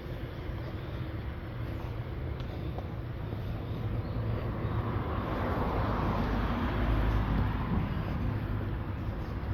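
A motor vehicle passing, its noise building to a peak about six to seven seconds in and then easing off, over a steady low background of traffic.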